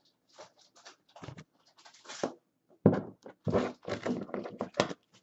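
Trading cards being handled and sorted by hand on a tabletop: scattered soft slides, flicks and taps of card stock, sparse at first and becoming busier and louder about three seconds in.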